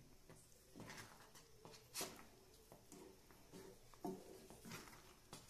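Faint, soft scrapes and light knocks of a wooden spatula stirring thick cooked oats in a pan, a few strokes spread over the seconds, the clearest about two and four seconds in.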